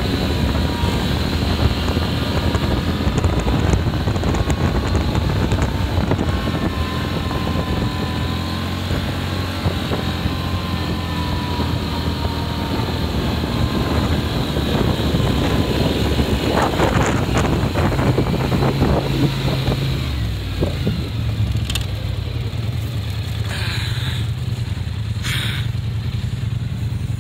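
Polaris Sportsman 570 ATV's single-cylinder four-stroke engine revving up and down as it drives around, then running steadily at low revs close by for the last several seconds.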